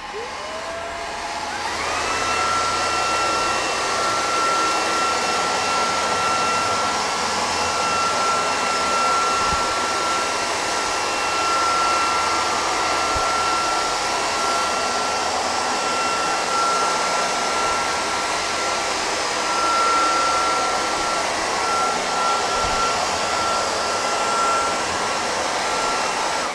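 Redroad 17 Lite cordless stick vacuum on turbo mode, its motor spinning up with a rising whine over the first two seconds, then running steadily with a high whine over rushing air. It sounds quiet for turbo mode.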